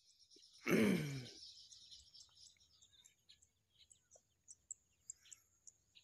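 Rice-field ambience: short high bird chirps, two or three a second, over a faint steady high hum. About a second in there is a brief loud sound that falls in pitch, like a groan or sigh.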